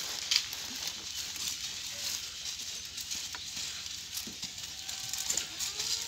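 Irregular crackling and rustling of dry crop stalks and straw as goats move about on them and pick through them.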